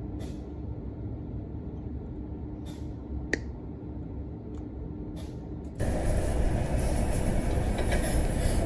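Steady low workshop hum with a few light clicks and one sharper click a little over three seconds in; the hum becomes clearly louder and fuller about six seconds in.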